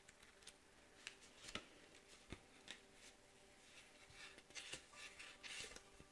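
Faint paper rustling and soft clicks of pages being leafed through in a paperback card guidebook, busiest in the last two seconds.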